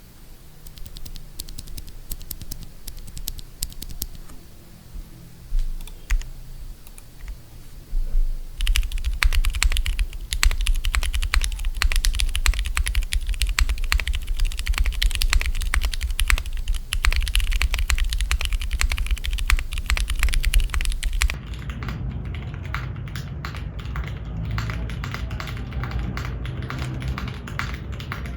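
Continuous typing on a Neo70 gasket-mounted mechanical keyboard with an aluminium plate and no foam, fitted with Cherry MX Blue housings and Durock T1 Sunflower tactile stems. It starts light and gets faster and louder about a third of the way in, and the sound turns duller near the end.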